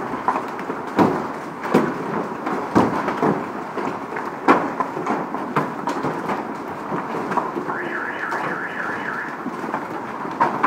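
Heavy hail pelting down without pause: a dense hiss of falling stones with frequent sharp cracks as hailstones strike the ground and parked cars. About eight seconds in, a brief pulsing high tone sounds over it.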